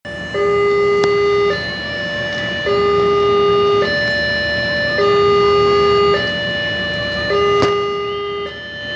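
Railway level-crossing warning alarm sounding as a train approaches: an electronic two-tone signal that alternates steadily between a low and a higher tone, each held a little over a second.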